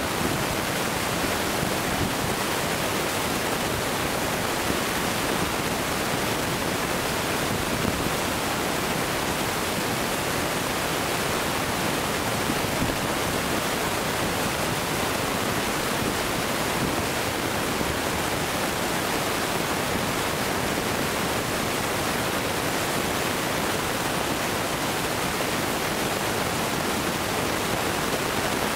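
Steady, even rushing noise with no bangs or bursts in it.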